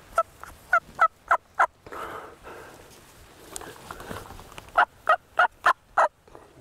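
Turkey yelping: two runs of about five short, sharp yelps each, one at the start and one about five seconds in.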